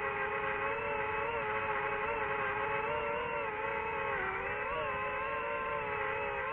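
DJI FPV drone's motors and propellers whining steadily in flight, the pitch wavering with throttle and dipping briefly about four and five seconds in.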